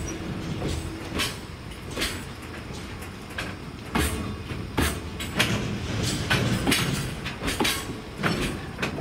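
Koki container wagons of a JR Freight train rolling past as it pulls into the station. The wheels click and clank irregularly over rail joints above a low rumble.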